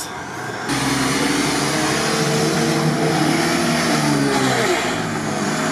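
UAZ off-roader's engine revving hard under load as it pushes through a flooded mud rut, over a rush of churned water. The sound comes in abruptly under a second in and holds high, then the engine eases off near the end.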